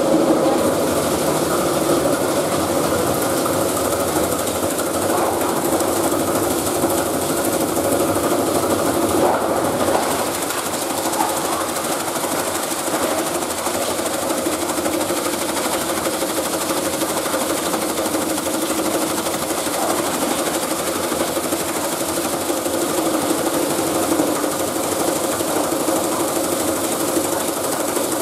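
Belt-driven plastic crushing machine running steadily while scrap plastic is fed in and ground: a dense, continuous rattle over a constant hum. It dips slightly in level about ten seconds in.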